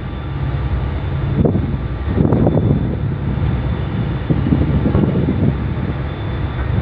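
Steady low rumble of a ship's engine, with wind gusting on the microphone now and then.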